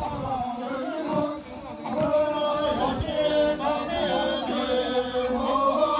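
Several voices singing together in a chant-like melody, with held notes.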